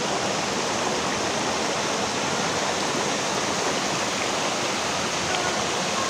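Waterfall, its water rushing over rock in a steady, even noise.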